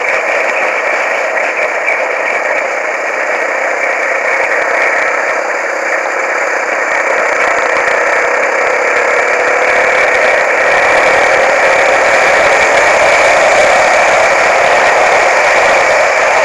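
Off-road motorcycle under way, its engine and the wind rush heard as a steady, muffled drone; it grows a little louder about eleven seconds in.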